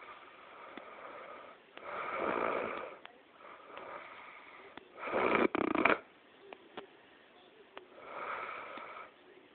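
A sleeping person snoring loudly: three snores a few seconds apart, the loudest about five seconds in, with a brief break in the middle of it, and a softer breath between the first two.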